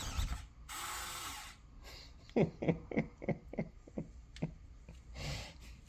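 Smart deadbolt lock's motor whirring briefly as it drives the bolt, followed by a run of light clicks and a second short whirr near the end.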